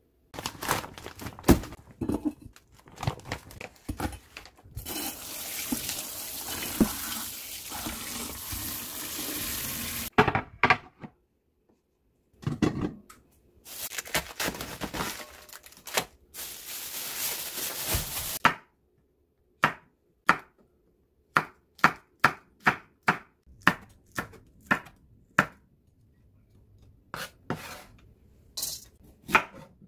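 Kitchen tap running into a sink in two stretches, with handling clatter of bowls and utensils around them, then a kitchen knife chopping vegetables on a wooden cutting board at about two strikes a second.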